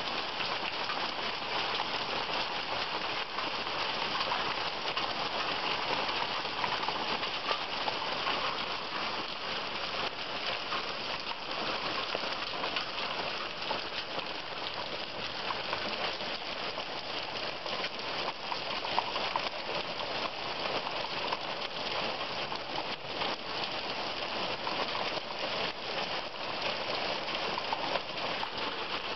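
Heavy storm rain falling steadily, an even dense hiss of countless small drop impacts.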